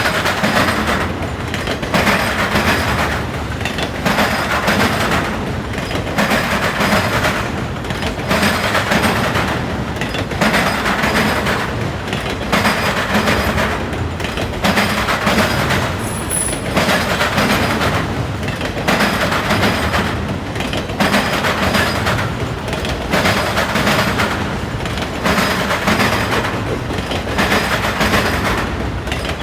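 Autorack freight cars rolling over a railroad diamond crossing, their wheels hammering the crossing with a loud clatter about every two seconds as each car's trucks pass.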